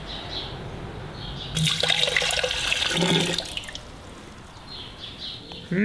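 Water poured from a plastic jug into a freshly welded steel pipe that is still hot, with a dense pouring and hissing sound for about two seconds starting about a second and a half in as steam rises off the hot metal.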